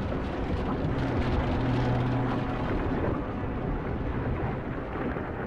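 Volcanic lava fountain erupting: a steady, noisy rumble.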